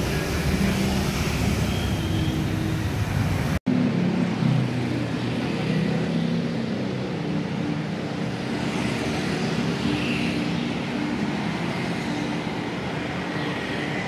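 City street traffic: the steady noise of passing cars and other vehicle engines. The sound breaks off for an instant about three and a half seconds in, and after that the deep rumble is weaker.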